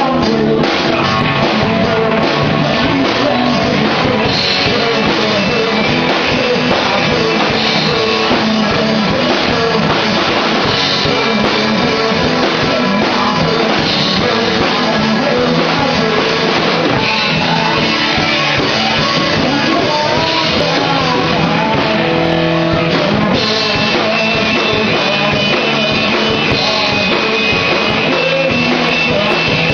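Rock band playing a Britpop song live: drums and guitar with singing.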